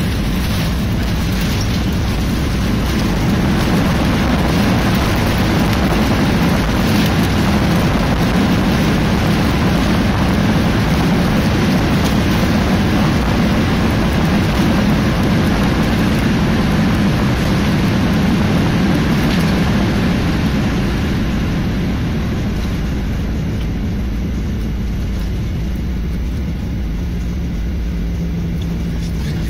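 Cabin noise of a Boeing 737-800 in its landing rollout: a loud, steady roar of the CFM56 engines in reverse thrust and the wheels rumbling on the runway. It swells a few seconds in, holds, then eases off after about twenty seconds as the jet slows, leaving a steady low hum.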